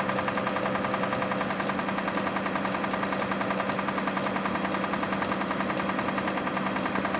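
2005 Kia Sorento engine idling with a fast, even knocking pulse running through it: the engine noise whose cause the owner is trying to diagnose.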